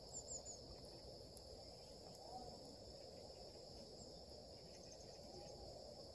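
Faint outdoor ambience of a steady, high insect trill, typical of crickets, with a few short high chirps near the start.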